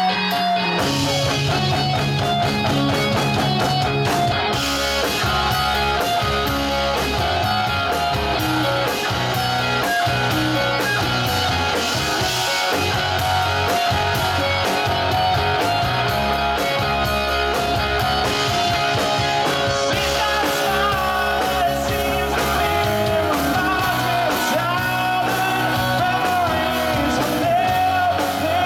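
Live rock band playing: electric guitars, bass guitar and drum kit together in a continuous, loud song.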